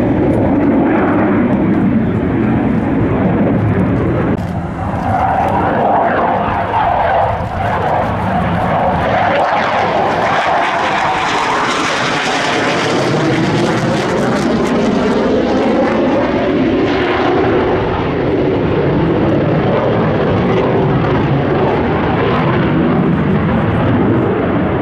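FTC-2000 (JL-9 Shanying) jet trainer's single turbojet engine running loudly as the jet makes a low display pass, its tone sweeping and shifting as it goes over, most strongly about ten to fourteen seconds in.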